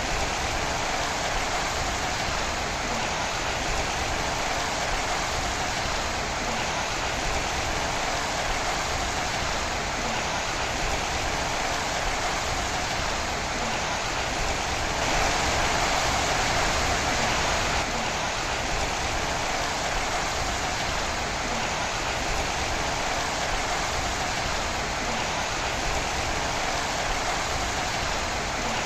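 Steady rain: an even hiss of falling water that swells a little louder for a few seconds about halfway through.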